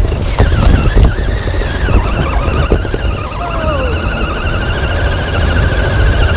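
Wind rumbling on the microphone over the whine of an RC rock crawler's electric drive motor and gears. The whine slides up and down in pitch with the throttle in the first half and holds steadier, with a slight waver, in the second half.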